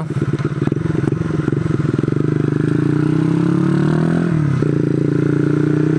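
Benzer motorcycle's single-cylinder engine with a loud exhaust, pulsing unevenly at first, then revving up steadily as it accelerates. About four seconds in the pitch drops at a gear change, and the engine pulls on steadily.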